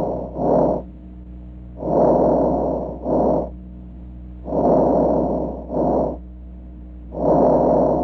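Normal vesicular breath sounds from a person's lungs, as heard through a stethoscope. About three breaths, each a longer soft rushing followed by a shorter, fainter one, over a steady low hum.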